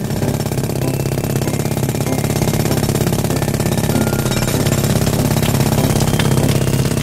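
Cartoon trencher sound effect: a machine engine running with a steady, rapid mechanical chatter that starts abruptly.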